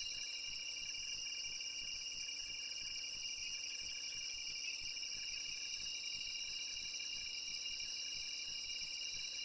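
Night insect chorus: a steady, high-pitched trilling in several layered tones, with no rumble or blasts from the eruption audible.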